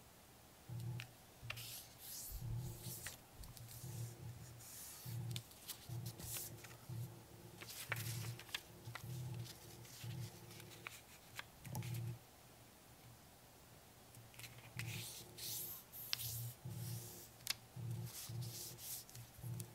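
Origami paper being folded by hand: fingers rub and press along the creases of a square sheet in short, dry strokes, over soft background music.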